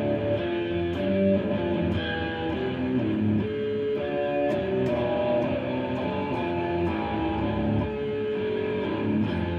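Stratocaster-style electric guitar playing an instrumental passage of picked chords, the chords changing about every half second.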